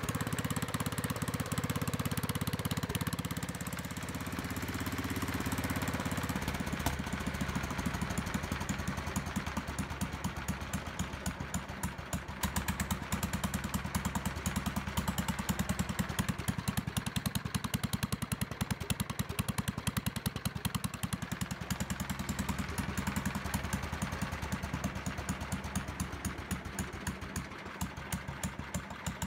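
Kohler engine of a Howard Gem rotavator running steadily. About six seconds in its sound turns into distinct, evenly spaced firing beats, which go on to the end.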